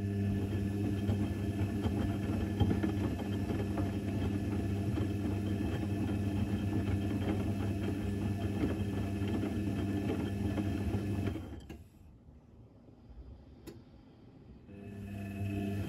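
Electrolux EWC1050 front-loading washing machine tumbling a load of towels in its main 90 °C cotton wash: a steady motor hum with the churning clatter of the wet laundry. It stops about eleven seconds in and starts again near the end, the drum's turn-and-pause rhythm during washing.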